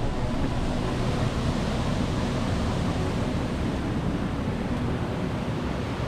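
Steady rush of a shallow mountain stream running over rocks.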